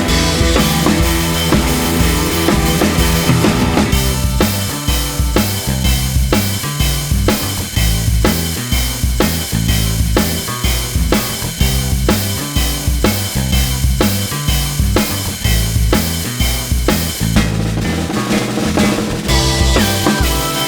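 Background music: a drum-driven track with a steady beat of kick and snare under bass and other instruments.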